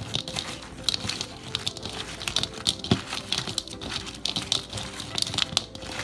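A hand tossing air-fried french fries with seasoning powder in a bowl: a busy crackling rustle of fries rubbing and knocking against each other and the bowl, with many small sharp clicks.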